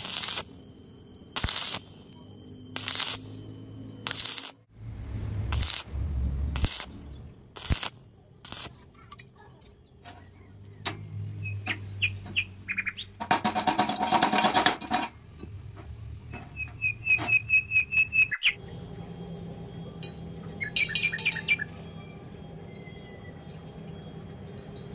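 Stick welding arc on steel tube, struck in short separate crackling bursts about a second apart during the first eight seconds or so. Later, quick high chirping trills come in short runs.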